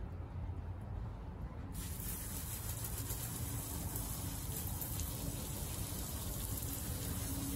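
Water spraying from a hose during a car wash: a steady hiss that switches on suddenly about two seconds in, over a low rumble.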